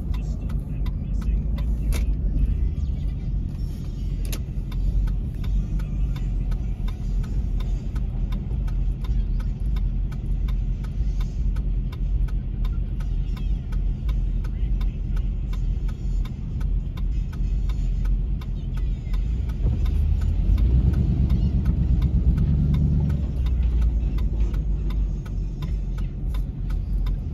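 Low rumble of a car's engine and road noise heard from inside the cabin in slow stop-and-go traffic, swelling for a few seconds about three-quarters of the way through as the car moves forward.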